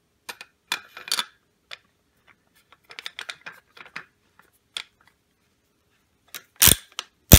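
Stainless steel suppressor being threaded by hand onto a quick-detach flash hider: a run of light metallic clicks and rattles, then two loud sharp clacks near the end as the can locks on tight.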